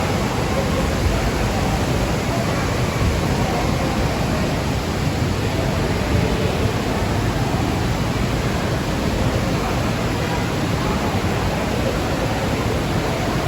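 Varone waterfall's falling water: a loud, steady, unbroken rush of noise.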